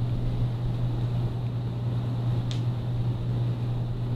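A steady low hum, with a single small click about two and a half seconds in.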